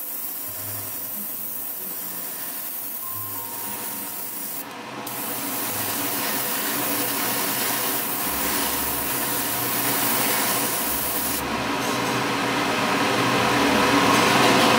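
Airbrush spraying pearl paint: a steady hiss of air and paint that grows louder partway through and breaks off briefly twice, over a faint steady hum.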